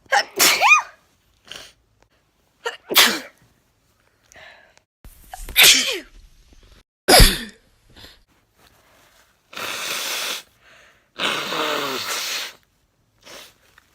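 A run of sneezes, four sharp ones in about eight seconds, each with a falling voiced tail. They are followed by two longer, noisy nose blows of about a second each.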